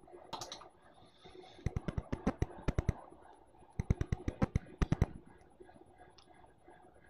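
Two runs of quick, sharp clicking taps, about eight a second and each a little over a second long, like fast typing on a keyboard.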